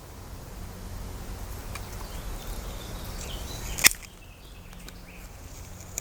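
Lopper blades closing through a wild cherry branch of about 12 mm with the tool in its plain, non-ratchet mode. Against a low rumbling background, the branch gives one sharp snap about four seconds in as it is cut through, and there is a shorter click near the end.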